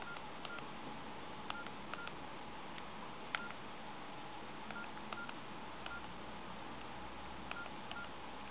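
Nokia E51 keypad tones: about a dozen short beeps, all at the same pitch and each with a small click, as keys are pressed at an uneven pace, over a steady hiss.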